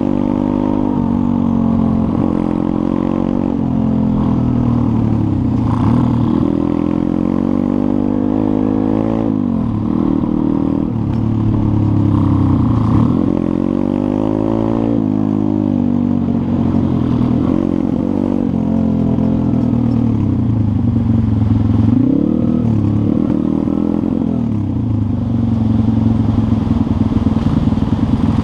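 Pit bike's small single-cylinder four-stroke engine, heard from on the bike while riding. Its pitch climbs under throttle and drops sharply at each gear change, several times over.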